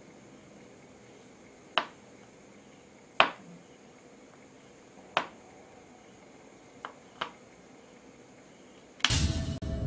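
Hard, sharp clicks of ferrite core halves being knocked together and handled: five separate clicks spread over about seven seconds, two of them close together near the end. Music comes in suddenly just before the end.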